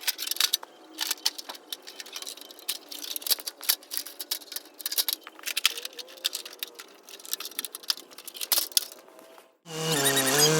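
Hard objects being handled: many irregular sharp clicks, taps and light rattles. After a short gap near the end, music with a strong bass line starts suddenly.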